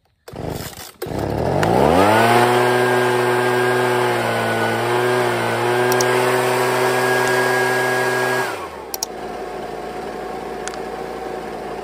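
Husqvarna handheld leaf blower's two-stroke engine pull-started off choke: it catches about a second in, revs up and runs at high speed, then drops back to a steady idle about three seconds before the end. Freshly fitted with a carburetor kit, it now revs up and idles without the choke, where before it would not throttle up.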